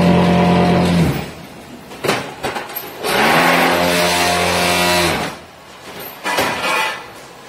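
DW-40 automatic brick-making machine's stacker drive: an electric drive hums steadily and stops about a second in. After a few metal clicks and clanks it spins up again, rising in pitch, runs with a hiss for about two seconds and stops, followed by more clanks.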